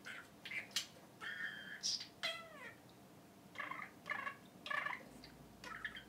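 Budgerigar talking in its high, chattering mimic voice: a string of half-clear words, captioned as "bedroom" and "birds", with gliding chirps, then a run of short repeated calls imitating a phone ringing.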